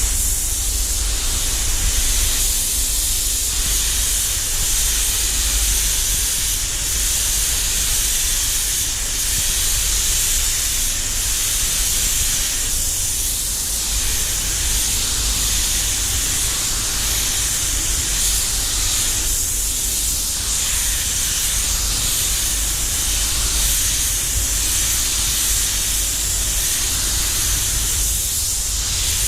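DeVilbiss DV1 air spray gun hissing steadily as it sprays metallic base coat, starting right at the beginning, over a constant low rumble.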